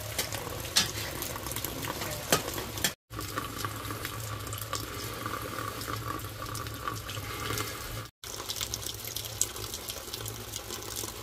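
Water running and splashing, with scattered clicks and knocks. It breaks off abruptly twice.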